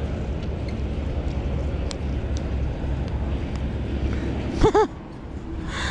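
Steady low outdoor rumble, with a few faint ticks and one short voiced sound, like a brief grunt, near the end.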